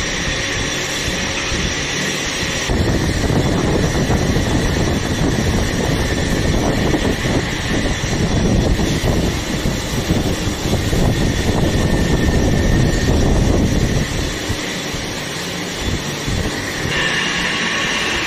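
Lathe running with a gearbox housing spinning on its faceplate while a boring bar cuts a 40 mm bearing-seat bore. Steady machine noise with a constant whine, heavier and rougher from about three seconds in until about fourteen seconds.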